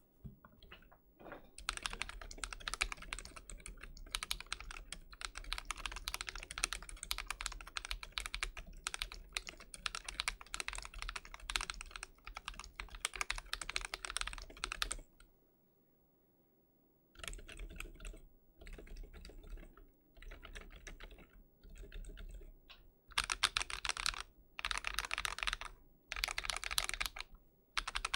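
Typing on a Sofle v2.1 mechanical keyboard fitted with stock Boba U4 silent tactile switches and Akko Lavender Purple tactile switches lubed with Krytox 205: a long stretch of fast continuous key clacks, a pause of about two seconds midway, then more typing in short runs with gaps, loudest near the end.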